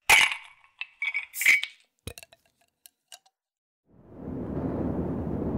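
Sound effects for an animated channel logo: a few sharp, ringing metallic clinks in the first two seconds, then a few faint ticks. From about four seconds a steady low rumble sets in.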